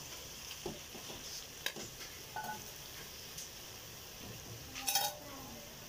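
Chicken and vegetables sizzling in a hot metal pan while being stirred with a slotted metal spoon, with a few short scrapes and knocks of the spoon against the pan.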